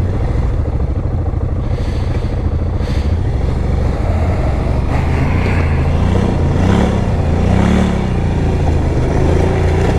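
ATV engine running at a steady idle, with two short revs that rise and fall about six and a half and seven and a half seconds in.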